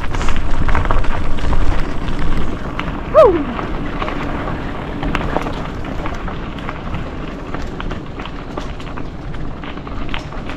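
Mountain bike riding down a dirt trail: tyres rolling over rough ground and the bike rattling, with heavy rumble and knocks for the first couple of seconds. About three seconds in comes a short falling squeal, the loudest sound, then steadier rolling noise with scattered clicks.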